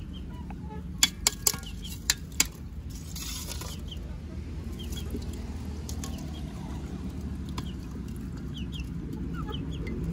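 Chickens clucking, with five sharp knocks in quick succession about a second in and a brief hiss a little after.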